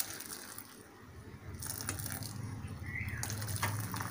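Thick horse gram soup with vegetable pieces being poured from a steel pan through a metal mesh strainer: a low, wet pouring and splashing that grows after about a second and a half, with a faint click near the end.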